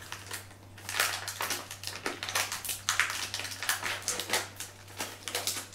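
Crinkling and crackling of a clear plastic food tray being handled and opened, a quick, irregular run of sharp rustles.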